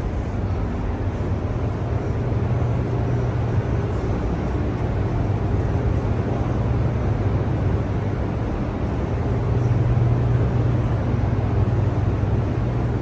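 Steady low hum of the hydroelectric generators and machinery in the Hoover Dam power plant, a continuous drone with no breaks.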